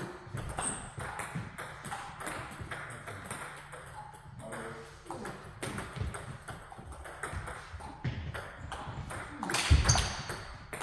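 Table tennis rally: a plastic ball clicking off bats and the table in quick, irregular succession, with one louder thump near the end.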